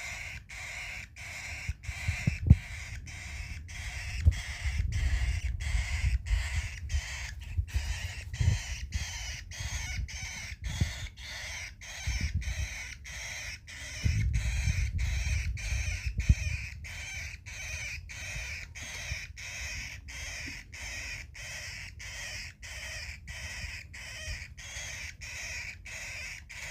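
Baby cockatiel's raspy food-begging calls, repeated steadily about twice a second. A few low bumps and a longer low rumble past the middle sit under the calls.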